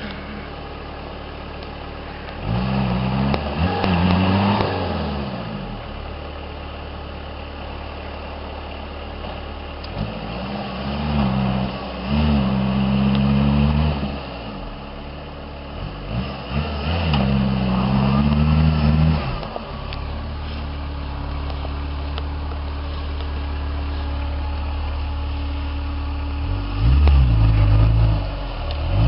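Suzuki Samurai engine running, revving up several times and dropping back to a lower steady note in between.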